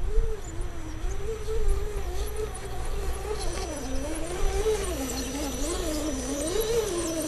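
Axial SCX10 RC crawler's electric motor and gear drivetrain whining, the pitch rising and falling again and again as the throttle is worked while it crawls over dirt clods. From about halfway through, light gravel crunching and ticking join in as the truck passes close by.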